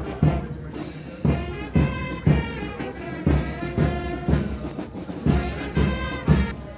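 Military brass band playing a march, with a steady bass-drum beat of about two strokes a second under the brass.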